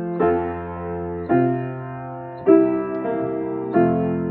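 Piano playing slow, sustained chords: four chords struck about a second and a quarter apart, each fading away before the next.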